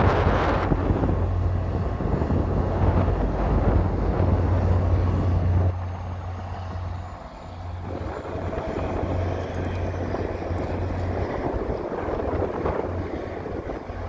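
Diesel locomotive of an MBTA commuter train running with a steady low drone. It drops away suddenly about six seconds in, then picks up again a couple of seconds later.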